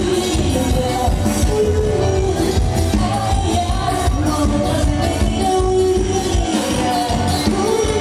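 Forró band playing an upbeat dance number with a singer, over a steady driving beat.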